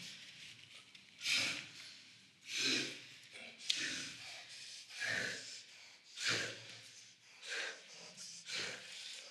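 A man breathing heavily, loud ragged breaths about once a second, with a short knock near the middle.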